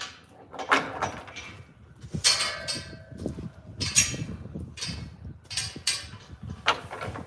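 Irregular clattering, knocking and rustling from chores being done by hand in a barn, with about half a dozen louder knocks spread through it.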